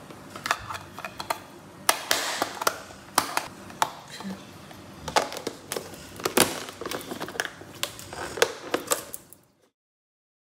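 Plastic lunch container and its small sauce cup being handled and the lid pressed on: a run of irregular sharp plastic clicks and clatters that cuts off suddenly about nine seconds in.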